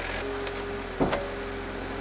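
Compact excavator running, with a steady whine coming in shortly after the start as the boom works, and a single sharp clunk about a second in.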